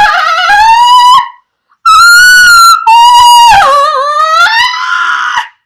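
A woman acting out a huge, exaggerated sneeze in a loud, high, drawn-out voice: one held cry of about a second, a short break, then a longer cry of over three seconds that wavers and dips in pitch.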